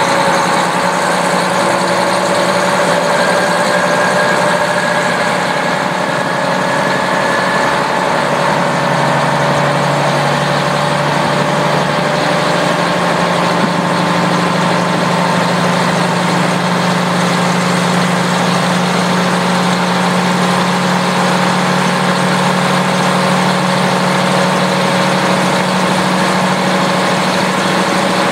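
A KiHa 40 diesel railcar's engine running steadily, heard from inside the car through an open window. It is a continuous low drone with steady tones above it, and the drone grows a little stronger about nine seconds in.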